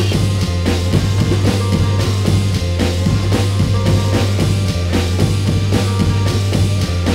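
Instrumental passage of an illbient remix of a noise-rock track: a busy drum-kit beat over a steady low bass drone.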